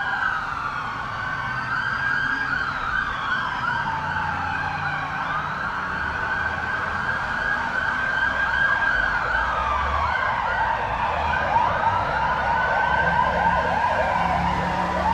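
Several emergency-vehicle sirens sounding at once, overlapping slow rising-and-falling wails, with fast warbling yelps taking over about halfway through.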